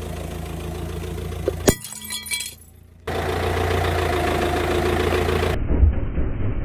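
Car engine running steadily as the car creeps forward. About two seconds in, a sharp crack and about a second of crackling, the sound of something brittle breaking under a tyre. Near the end there are low dull thumps as the tyre presses onto a ceramic bowl.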